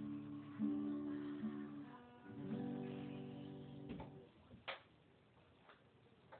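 Dean Exotica Cocobolo acoustic-electric guitar strummed, its chords ringing out for a few seconds. About two-thirds of the way in there is a short knock, then a click.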